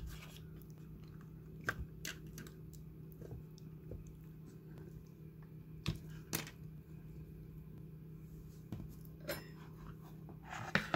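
Fingers pressing and handling a replacement iPad Air 2 battery in the tablet's metal frame: scattered small clicks and crinkles over a low steady hum.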